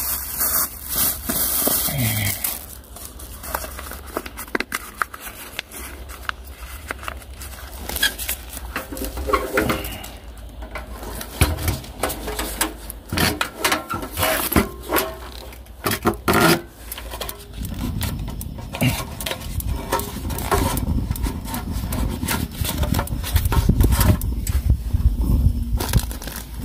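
Irregular clicks, crackles and rustles from handling things beside a small camp brazier burning pine cones. A low rumble sets in about two-thirds of the way through.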